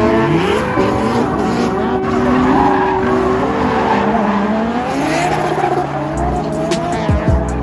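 Drift car engine revving up and down, with tyres squealing and skidding as the car slides.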